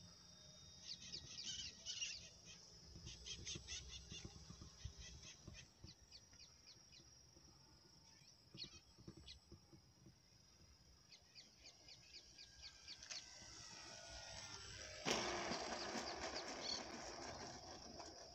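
Faint chirping and ticking of insects and birds in an open field. Near the end a faint falling engine tone from the radio-controlled model airplane coming in to land, then a sudden rush of noise for the last few seconds as it comes down on the dirt strip.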